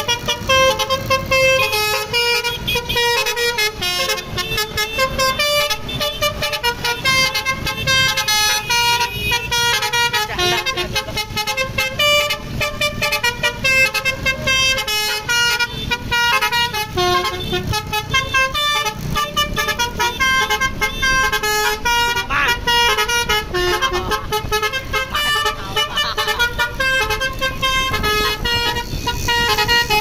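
Basuri telolet musical bus horn playing a fast melody of stepped notes without a break, several horn tones at once, over the bus's engine running underneath.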